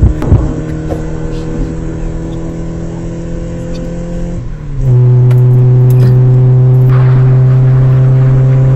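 Car engine hum, a steady low drone with a few clicks at the start. About four and a half seconds in it slides down to a lower pitch and gets louder, then holds steady.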